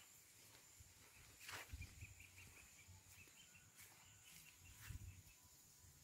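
Near silence: faint rural outdoor ambience, with a soft run of quick, evenly spaced high chirps starting a little under two seconds in, and two faint knocks.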